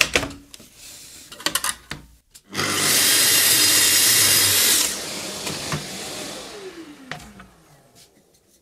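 Festool TS 55 REBQ plunge-cut tracksaw on its guide rail: after a few clicks, the motor starts about two and a half seconds in and runs for about two seconds as the blade cuts through a wooden batten. Once the saw is released, the blade spins down with a falling hum over a couple of seconds.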